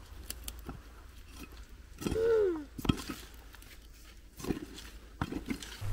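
Scattered knocks and scrapes of a long-handled digging tool working dry soil and roots. About two seconds in, a toddler lets out a short, high vocal sound that falls in pitch; it is the loudest thing here.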